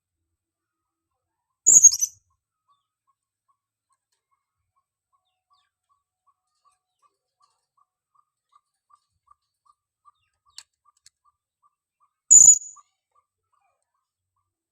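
Female blue-crowned hanging parrot (serindit) giving a lure call: two short, shrill, high-pitched calls about ten seconds apart.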